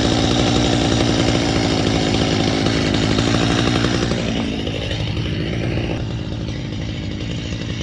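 Stihl two-stroke chainsaw engine running fast, then easing off about halfway through to a lower, quieter running speed.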